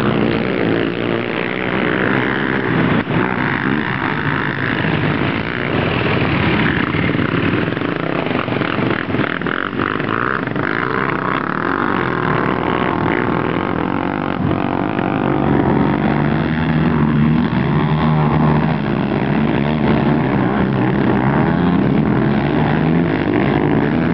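Sport quad bikes' engines revving hard as they race past on a dirt track, several at once and changing pitch with the throttle, getting louder and heavier from about fifteen seconds in.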